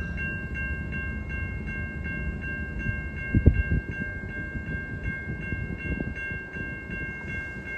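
Railroad crossing bell ringing steadily at about three strikes a second, over a low rumble, with a single thump about three and a half seconds in.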